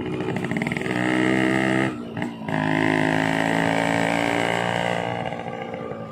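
Small motorcycle engine running under load, pulling steadily. It dips briefly about two seconds in, as at a gear change, then pulls strongly again and eases off near the end.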